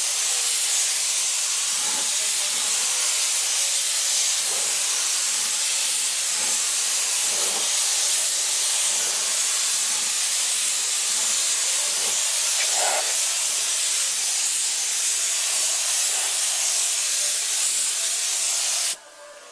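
Gravity-feed compressed-air spray gun hissing steadily as it sprays primer onto sheet metal, cutting off suddenly near the end as the trigger is released.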